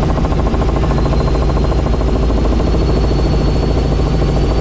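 Helicopter in flight heard from inside the cabin: a steady loud drone of engine and rotor, with a faint high whine above it.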